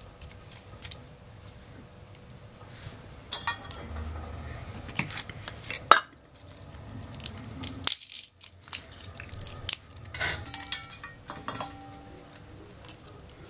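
Dry wooden stick being shaved with a knife and split by hand into thin kindling strips: irregular scrapes, small cracks and snaps, with a few sharp metallic clinks.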